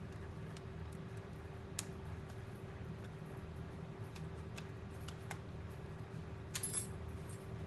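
Scattered small sharp clicks and taps of hands handling hardware on a workbench, with a short cluster of clicks about six and a half seconds in, over a steady low hum.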